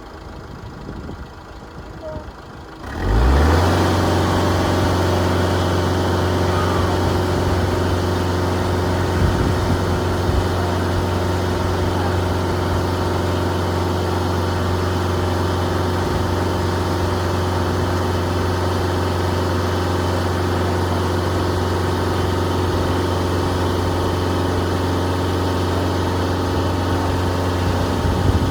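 An engine starts about three seconds in, rising in pitch as it catches, then runs at a steady idle.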